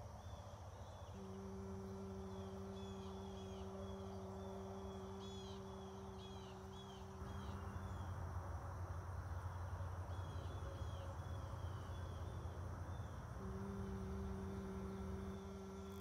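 A woman humming one steady low note for about six seconds, then a long breath, then humming the note again near the end. Small birds chirp in the background.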